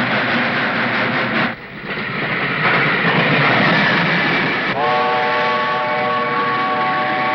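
A steam train running, a loud steady rush of noise that drops briefly about a second and a half in. Just before five seconds in, the locomotive's steam whistle starts one long, steady, chord-like blast and holds it to the end.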